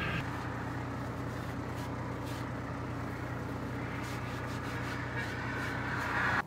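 VW T3 Syncro van's engine running steadily with a low hum, which cuts off abruptly near the end.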